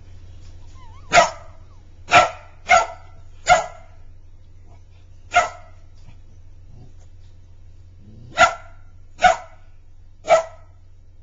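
Border Collie puppy barking: eight short, sharp barks, four in the first few seconds, one alone about halfway, and three more near the end.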